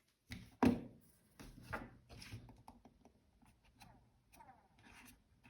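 A Logitech M650 mouse being handled: a sharp knock about half a second in, then a run of irregular small clicks and rubbing sounds.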